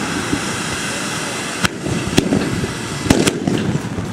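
Hand-held bamboo tube fireworks (tezutsu hanabi) spewing fire with a steady, loud rushing hiss, broken by a few sharp cracks between about one and a half and three seconds in.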